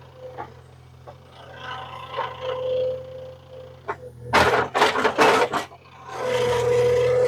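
An engine running steadily, with a loud harsh rasping over it: a quick run of strokes about four seconds in, then a steady rasp from about six seconds.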